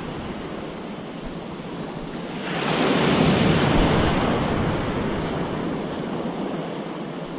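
Ocean surf washing in around the wader in the shore break. A wave rushes up about two and a half seconds in, then slowly dies away.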